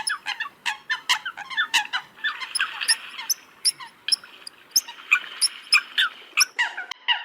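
Eurasian coots calling: many short, sharp calls in quick succession, several birds overlapping, over a faint hiss.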